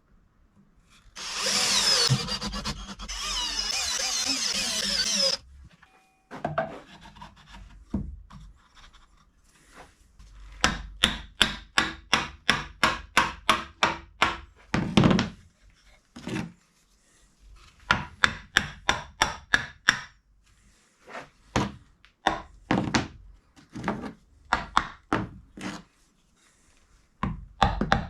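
Workshop tool work, likely on wood: a loud rasping noise for about four seconds, then a quick run of strokes at about four a second, then scattered knocks.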